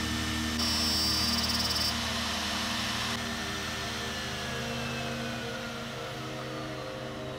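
Electric spindle motor of a dovetail-cutting machine running as it works along a wooden board. The high cutting whine drops away about three seconds in, and the motor's tone then falls slowly in pitch as it winds down.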